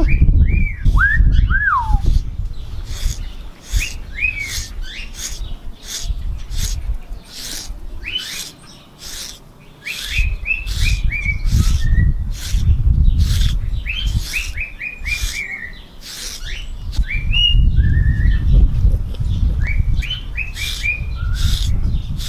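A SleekEZ grooming brush rasping through a husky's thick double coat in repeated strokes, about two a second. A small bird chirps in quick runs of short falling notes, and a low rumbling noise swells and fades at times.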